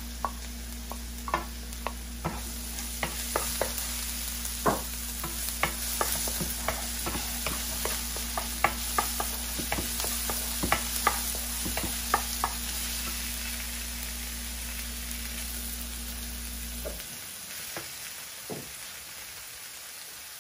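Chopped garlic, onion and ginger sizzling in hot oil in a nonstick wok while a wooden spoon stirs them, its strokes clacking sharply against the pan for about twelve seconds. Then the stirring stops and the sizzle goes on, growing a little quieter, and a low steady hum cuts out near the end.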